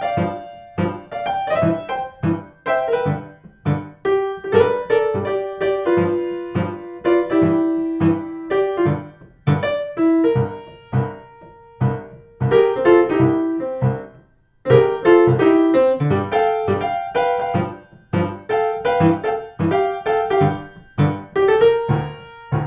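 Background music: a blues piano piece with a regular beat, which breaks off briefly about two-thirds of the way through.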